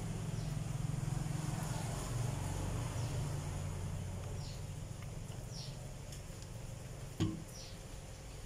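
Dark liquid poured from a glass bottle and splashing onto a flat brass plate, over a low steady hum. A few short high falling chirps like a small bird, and one sharp click near the end.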